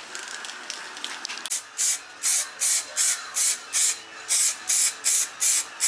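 Aerosol spray-paint can sprayed in short, regular bursts of hiss, about two or three a second, starting about a second and a half in.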